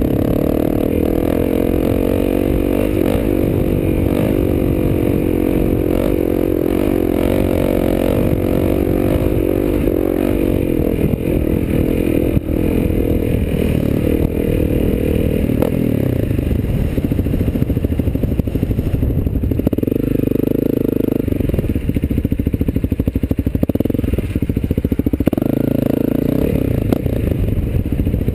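Honda CRF250L dirt bike's single-cylinder four-stroke engine with an FMF exhaust, running under changing throttle as it rides over rough ground. Its note rises and falls, with the revs climbing about twenty seconds in and again near the end, over a steady clatter from the bike.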